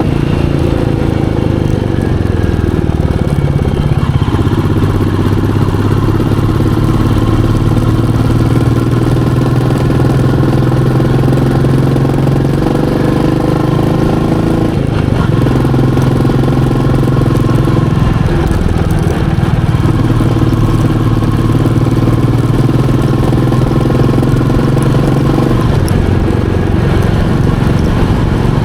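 Royal Enfield Meteor 350's single-cylinder engine running under way, its note dropping and climbing again several times as the ride goes on.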